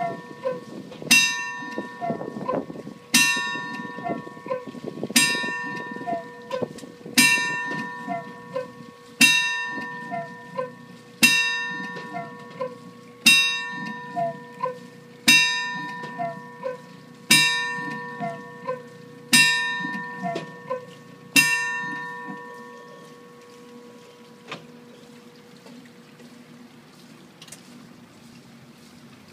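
Town clock's bell striking the hour: eleven strokes about two seconds apart, each ringing on into the next. The ringing fades away after the last stroke.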